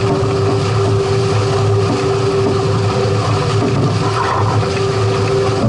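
Steady rush of wind and water aboard a catamaran under sail, with a constant low drone and a steady hum running through it.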